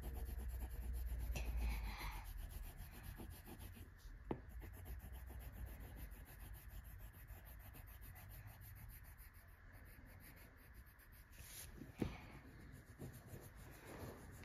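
A crayon scribbling quickly back and forth on paper, filling in a large area with colour in fast, scratchy strokes. There is a light knock about four seconds in and another near the end.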